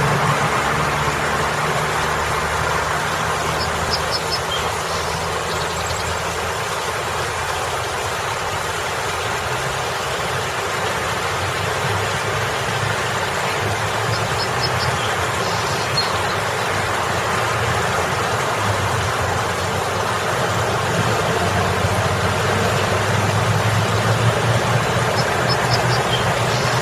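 Water pouring down a boulder water feature in a steady splashing rush, over a steady rumble of road traffic and vehicle engines.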